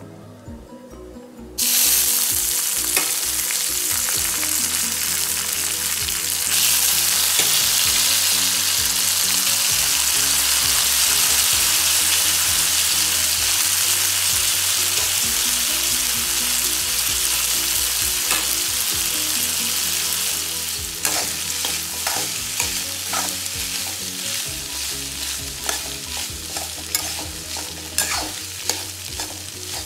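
Boiled fusilli pasta hits hot oil in a steel kadai and sizzles, starting suddenly just under two seconds in and getting louder about six seconds in. From about twenty seconds in, a steel spoon clicks and scrapes against the pan as the pasta is stirred in the spiced oil.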